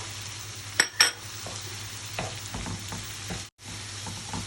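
Sliced onions, peppers and chopped tomatoes sizzling in oil in a frying pan as they are stirred with the spices. There are two sharp knocks about a second in, followed by softer scraping strokes, and the sound cuts out for a moment near the end.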